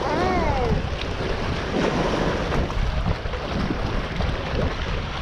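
Water sloshing and splashing at a camera mounted at the waterline of a kayak, with heavy wind buffeting the microphone. A short pitched sound that rises and falls comes right at the start.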